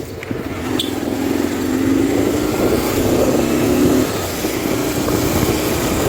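Motorcycle running along the road with wind rushing over the microphone; the engine note and wind get louder over the first two seconds, then hold steady.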